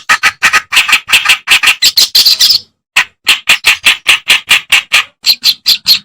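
Kerak basi (reed warbler) singing: a fast run of harsh, scratchy chattering notes, about five a second, with a brief break about two and a half seconds in.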